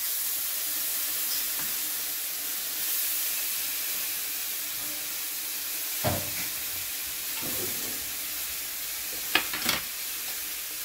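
Steaks and sausages sizzling in a frying pan: a steady hiss of hot fat, with a few light knocks about halfway through and a quick pair near the end.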